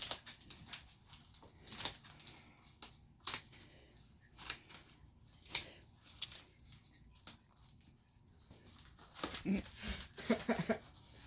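A present's packaging being worked open by hand: irregular short bursts of paper or plastic tearing and crinkling. Faint murmured voice near the end.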